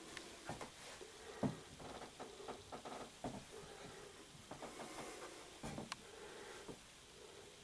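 N gauge model train running on the layout: a faint low hum from the locomotive's motor, broken by scattered irregular clicks and knocks of the wheels over rail joints and points.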